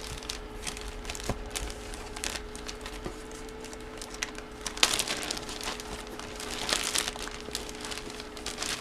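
Packaging crinkling and rustling as an autographed hockey jersey is unpacked and handled, in irregular crackly bursts that grow busier about five and seven seconds in.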